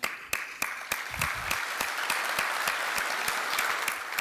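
Audience applauding, the clapping swelling to a full round after the first second.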